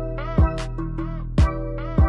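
Background music with a beat of deep drum hits under sustained tuned tones that bend in pitch.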